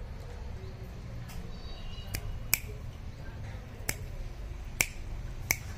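Rottweiler chewing a piece of fruit held between its paws: a handful of sharp, irregularly spaced smacks and clicks of its jaws, over a steady low background rumble.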